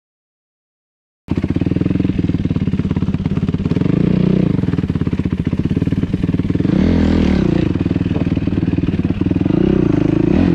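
After about a second of silence, a KTM 150 two-stroke dirt bike engine is running, its revs rising and falling a few times.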